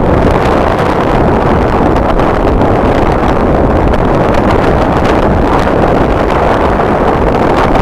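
Strong wind buffeting the microphone: a loud, steady rumbling rush with no clear tone.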